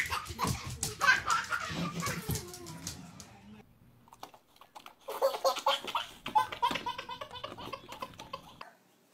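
Laughter in two runs. First a few seconds of laughing, then, after a short lull, a baby's rapid belly laughs for about three and a half seconds that cut off abruptly near the end.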